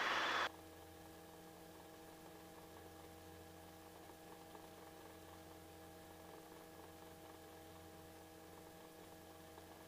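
A burst of noise through an open headset microphone cuts off about half a second in as the helicopter intercom closes. It leaves a faint steady electrical hum of several held tones on the intercom feed.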